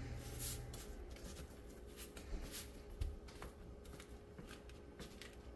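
Hands pressing and patting a crumbly oat crumb base into a parchment-lined baking sheet. Faint, irregular rustling and scratching of the loose oats against the paper.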